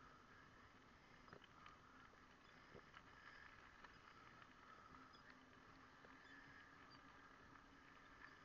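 Near silence: a faint steady hiss with a few soft scattered ticks.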